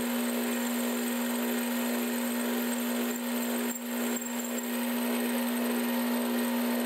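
12-inch Atlas metal lathe running under power feed while a carbide-insert boring bar bores a blind hole in a hardened grade 8 steel bolt. A steady machine hum over the noise of the cut, with two brief dips in the middle.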